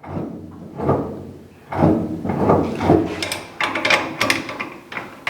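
Modified gas pedal and its throttle linkage being worked by foot, moving the carburetor throttle: a series of mechanical clunks and short creaks.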